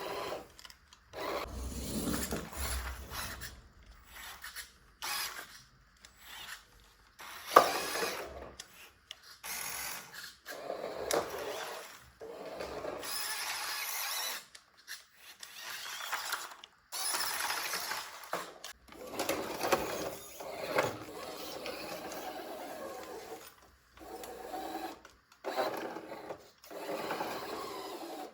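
Small toy RC car's electric motor and plastic gearbox whirring in short stop-start bursts, with a sharp knock about seven seconds in.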